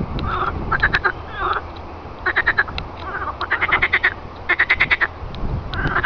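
A chorus of frogs calling from a pond: croaks made of quick pulses, in short trains of about half a second or less, one starting every second or so and overlapping one another.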